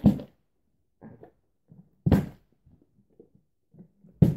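A plastic water bottle, partly filled with water, thumping down on the floor as it is flipped: three short knocks about two seconds apart, with faint handling noises between.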